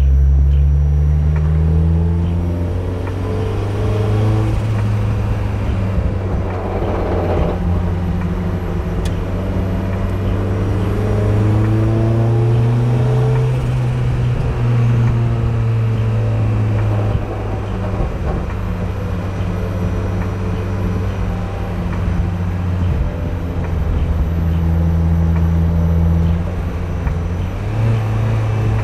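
Turbocharged Mazda MX-5 Miata's 1.6-litre four-cylinder engine running while the car is driven, its note rising and falling slowly in pitch over the half minute.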